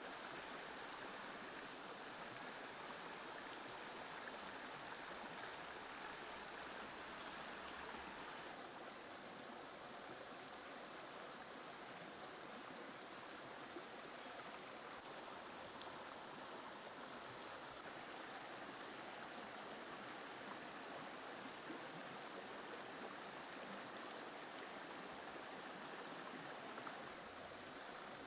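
Steady, faint rushing background noise with no distinct events.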